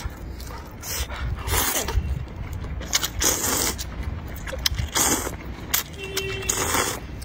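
Rice noodles in spicy soup being slurped, several short noisy slurps a second or so apart.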